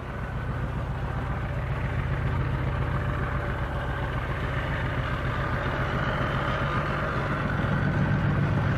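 OO gauge model of the LMS diesel 10000 running past on the layout hauling coaches: a steady engine-like drone with the rumble of the train on the track, getting louder over the first two seconds.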